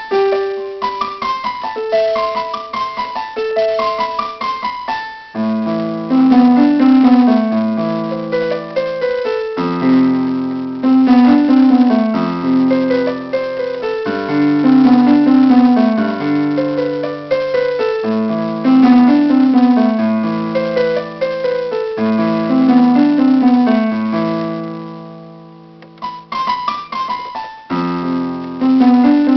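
Solo piano playing: a light treble figure at first, with bass notes joining about five seconds in for fuller chords. Near the end a chord is held and dies away, and after a short pause the playing starts again.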